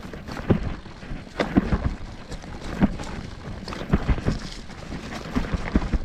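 Mountain bike rolling over rough trail ground, with irregular knocks and rattles from the bike and tyres.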